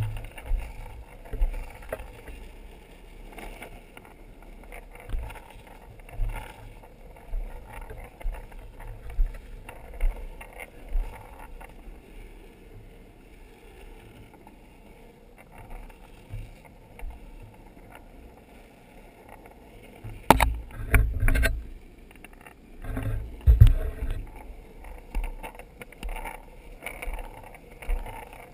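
Longboard wheels rolling over rough asphalt, a steady rushing noise with wind buffeting the microphone in gusts. A cluster of sharp knocks comes about twenty seconds in and another about twenty-three seconds in.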